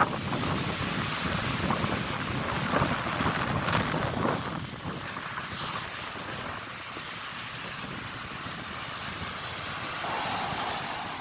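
Wind buffeting the microphone over breaking surf, louder for the first four seconds or so and then easing.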